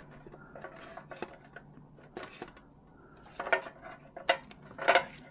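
Pokémon trading cards being handled and flicked through against a metal tin: light clicks and small clinks, with a few louder knocks about three and a half to five seconds in.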